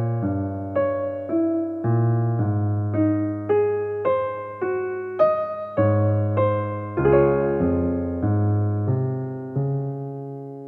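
Background music: a piano playing a slow melody with chords, about two notes a second, the final chord left to ring and fade near the end.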